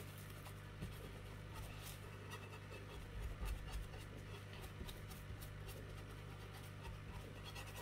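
Faint scratching and rubbing of a flat brush worked over cling film on a glass plate, pressing a glued paper napkin's edges down, over a low steady hum.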